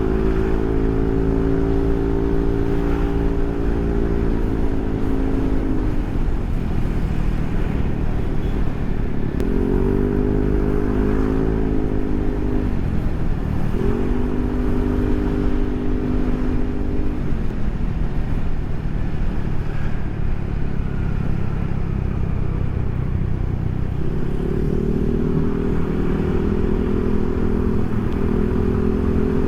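Yamaha NMAX scooter's single-cylinder engine running through a Proliner SR Neo Silent aftermarket exhaust while being ridden, with a deep, quiet note. The note holds steady, drops off about six seconds in, picks up again, and dips and fades between about eighteen and twenty-four seconds before rising again near the end, as the scooter slows and speeds up.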